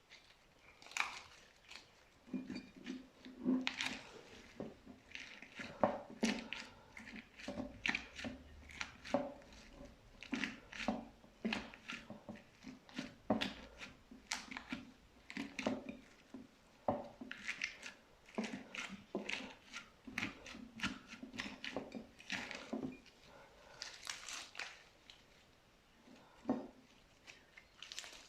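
Slime being pressed and kneaded by hand, making irregular sticky pops and clicks as air pockets burst.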